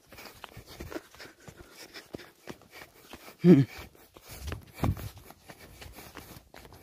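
Footsteps scuffing and crunching on loose sand while climbing a sandy trail, with a short loud grunt or breath from the climber about halfway through.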